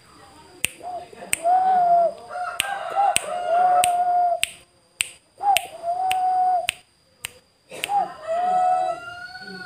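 Male puter (Barbary dove) cooing: several long drawn-out coos, each a short dipping note followed by a long level note, with short gaps between phrases. Sharp clicks sound at a steady rate between the coos.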